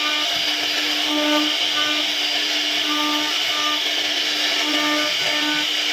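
CNC router spindle running as it carves a wood panel: a steady high hiss with a low hum that swells and fades about once a second.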